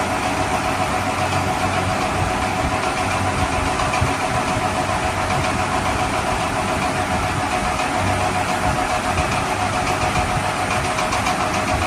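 A steady engine sound, like a vehicle idling, running evenly throughout with no breaks.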